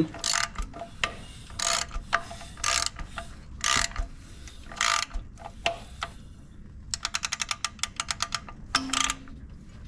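Ratchet wrench turning a 2.8 L inline-four's crankshaft over by hand: a series of strokes about once a second, then a fast run of pawl clicks near the end. The crank is being turned through full revolutions to check the timing chain marks.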